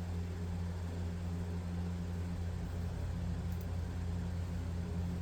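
Steady low hum under an even hiss, unchanging throughout: background drone of a motor or appliance running.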